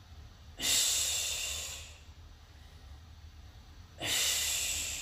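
A woman's forceful breathing out with the effort of crunches: two long, breathy exhales about three seconds apart, each loud at first and fading over about a second.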